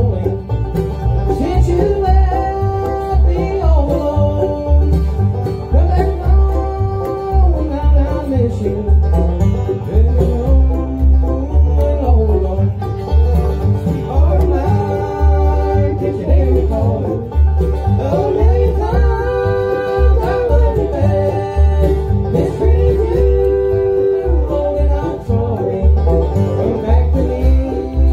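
Live bluegrass band playing on banjo, mandolin, acoustic guitar and upright bass, with the bass plucking a steady beat under the picked melody.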